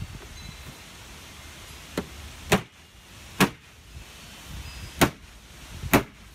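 Rubber mallet striking a rotomolded plastic spa-step tread, driving it down to seat it in the sidewalls: five sharp knocks about a second apart, the first lighter than the rest.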